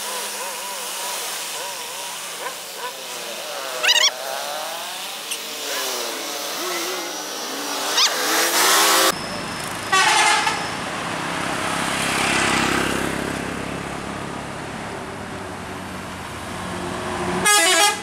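Tour buses sounding their multi-tone basuri telolet horns: loud horn blasts about halfway through and again just before the end. Between them a bus engine pulls up the hill as the bus drives past.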